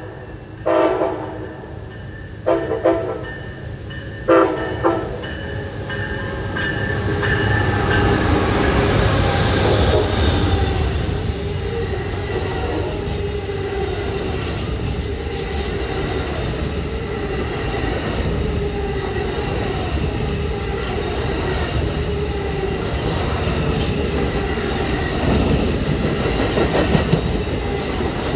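A locomotive horn sounds several short chord blasts in the first few seconds. Then a train passes close by: a steady loud rumble of wheels on rail, with clicking and some high wheel squeal near the end.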